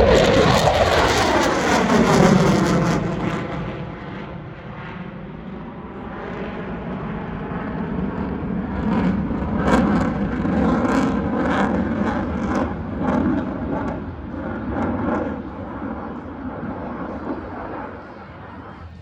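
An airplane passing overhead. Its engine pitch falls sharply as it goes by in the first few seconds, the loudest part, then a steadier engine drone rises again and fades near the end.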